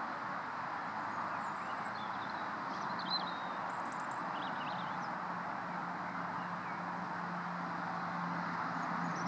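Outdoor background: a steady rushing noise with a few short, high bird chirps scattered through it, mostly in the first half and again near the end. A faint low hum rises during the second half.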